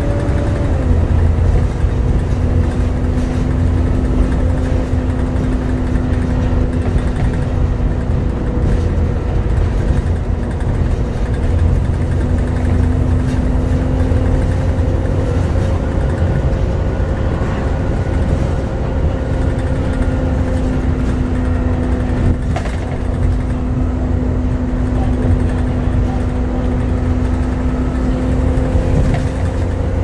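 Volvo B7TL double-decker bus heard from inside the passenger saloon while under way: a steady engine drone and road rumble with the bus's hoover-like whine. The whine's pitch drops about a second in, then holds steady, rising slightly now and then.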